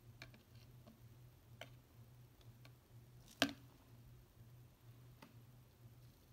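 Faint, scattered clicks of metal tongs and a hand working against a clear plastic tub of substrate, with one sharper click about three and a half seconds in. A faint low hum runs underneath.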